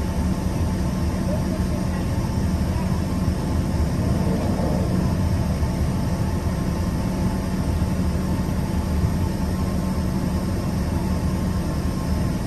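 Steady cabin drone of an Embraer EMB145 regional jet's rear-mounted turbofan engines, heard from inside the cabin, with a constant low hum underneath.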